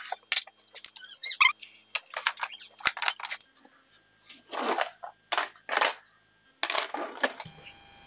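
A dishwasher being opened and its wire racks pulled out: short squeaks, then several brief clatters and rattles of racks and dishes.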